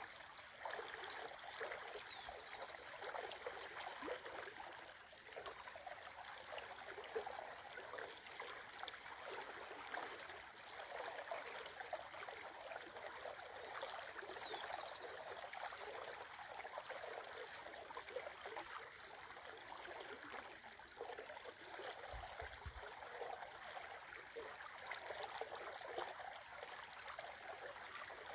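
Shallow river running over a stony bed: a steady rippling, gurgling flow of water. A short high bird call sounds a few times over it.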